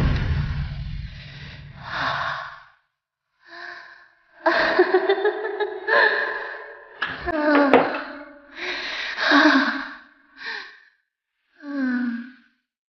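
A man's gasps, sighs and strained breathy vocal noises in short separate bursts, the sounds of a possession as a spirit takes him over. A low rumble fades out in the first two seconds.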